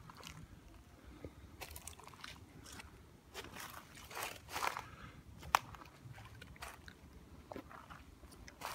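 Faint, irregular crunching and scraping sounds, with one sharp click about five and a half seconds in.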